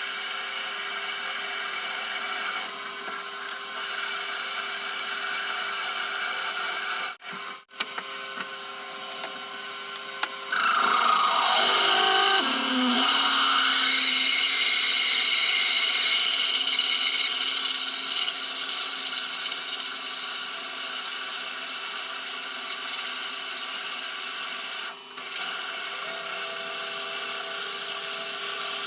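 Metal lathe running and cutting a steel blank: a steady machining noise with faint steady tones. About ten seconds in the cut gets louder, with a short whine falling in pitch, and the sound drops out briefly twice.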